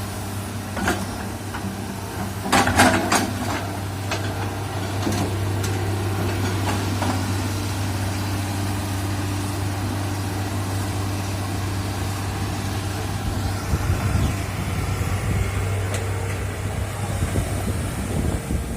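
Excavator's diesel engine running steadily while it digs a trench, with a few short sharp knocks in the first three seconds.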